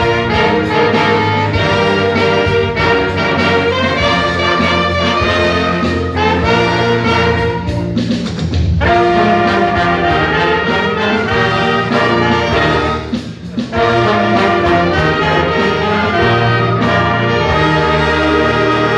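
Orchestra playing with the brass section to the fore, in a steady rhythm, with short breaks in the phrase about eight and thirteen seconds in.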